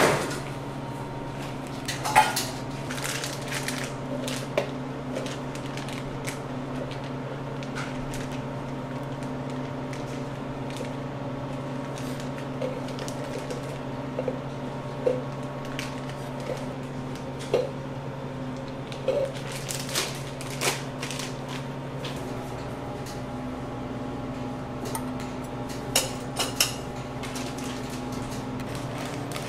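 Kitchen background: a steady machine hum with scattered clinks and knocks of utensils and dishes, the sharpest right at the start and about two seconds in, and a small cluster near the end.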